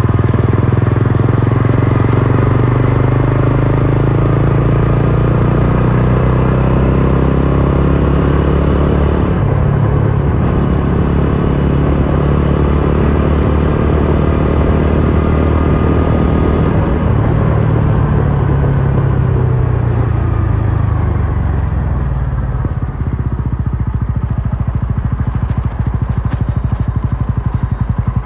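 TVS Ronin's single-cylinder engine and exhaust on the move. It pulls hard as the bike accelerates, with a brief lull about ten seconds in, then eases off as the throttle closes and the bike slows in the last third.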